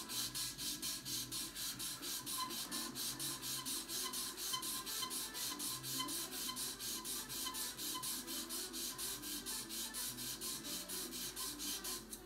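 Sandpaper rasping against a freshly glued Outsville Techno-dud cue tip as it is sanded down by hand, in quick even strokes about five a second that stop shortly before the end. Faint background music plays underneath.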